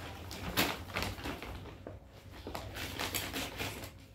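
Gift wrapping paper and a small cardboard box rustling and crackling as presents are unwrapped, with irregular short clicks and crinkles.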